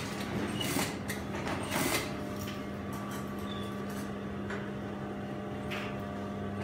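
Steady electric hum of industrial sewing machines in a workshop, with fabric rustling and a few light knocks as a garment is handled at the needle; the loudest two come about one and two seconds in.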